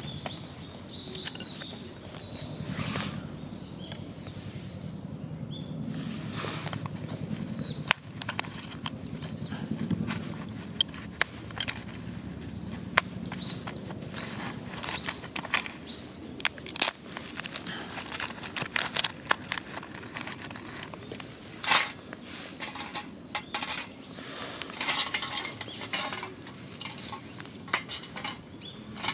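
Disposable wooden chopsticks burning in a small stove cut from an aluminium Coca-Cola can, crackling with irregular sharp pops and snaps.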